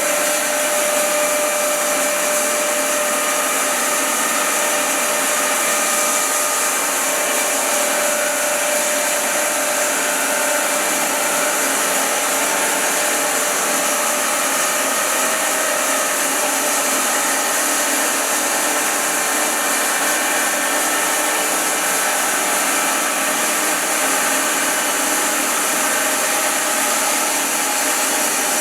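Wide-cut bandsaw mill running steadily, its blade sawing across a large silver maple trunk with a continuous hissing whir.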